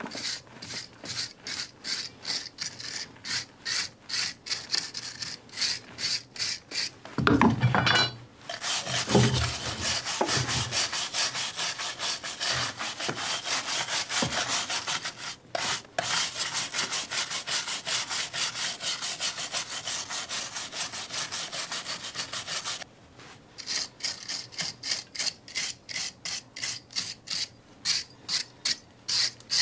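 Hand tool scraping back and forth along the mortar joints of a stone wall in quick repeated strokes, about three or four a second, as the joints are pointed and cleaned up. A few louder knocks come about 7 to 8 seconds in, and the strokes become quieter near the end.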